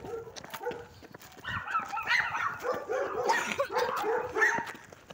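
A dog barking and yipping rapidly, several short barks a second, starting in earnest about a second and a half in.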